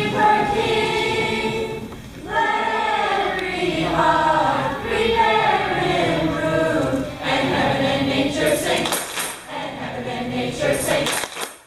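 A choir singing, the voices holding long notes and moving between them, with a short break between phrases near the end.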